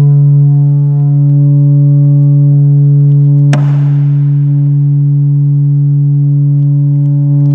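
Homebuilt plywood speaker playing a steady, loud low sine tone of about 143 Hz from a tone generator, with overtones stacked above it. A single sharp click sounds about three and a half seconds in.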